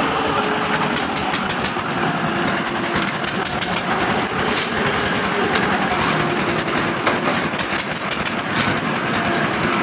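An engine running steadily, with a busy scatter of light ticks and clatter over it.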